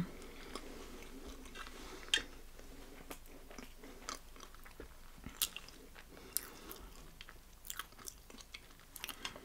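Close-miked mouth sounds of a person chewing soft, moist matcha cake with fondant. It is quiet, with scattered short wet clicks from the mouth.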